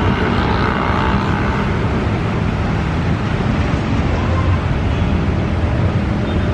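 A JR 205 series electric commuter train running along the track as it pulls away: a steady noise of wheels and motors, with a faint whine in the first second or so.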